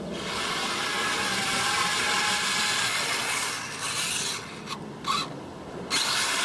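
Brushless-powered Kyosho Blizzard FR RC tracked snow cat running flat out on a 3S LiPo: a steady rasping whir of motor and tracks, which drops away briefly twice in the second half.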